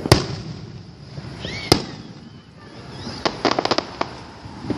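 Fireworks going off: a loud bang just after the start, another about a second and a half later, then a quick string of crackling pops near the end.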